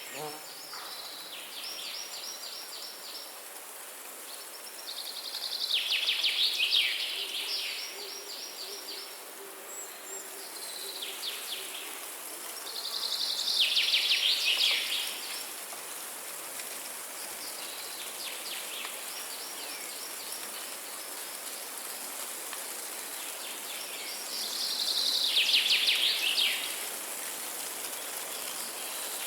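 Forest birdsong: a songbird repeating a fast trilled phrase of rapid notes every few seconds, some phrases loud and close, others fainter, over a steady high hiss. A faint low, held note sounds for a few seconds in the first half.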